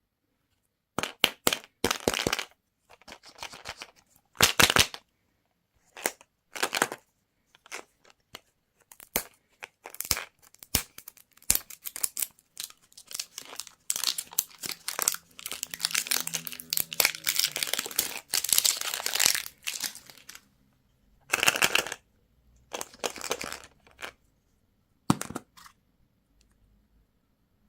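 Plastic candy wrappers and packaging crinkling and tearing in irregular bursts, with a longer stretch of steady crinkling in the middle.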